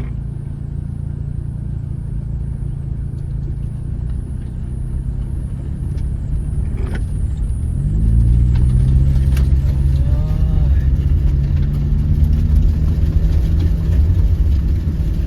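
Car engine running under load at low speed. About eight seconds in its note rises and it gets louder, then holds steady.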